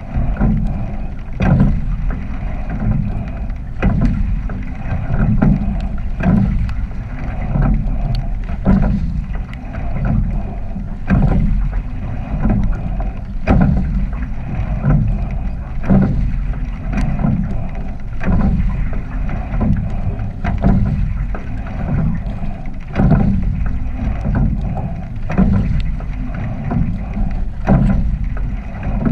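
Rowing shell under way: water rushing past the hull and oar, with wind on the microphone and a sharp knock from the oar in its oarlock on each stroke, repeating a little more than once a second.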